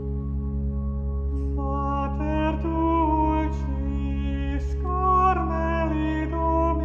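Slow background music: a held low chord, with a melody line of long notes entering about a second and a half in.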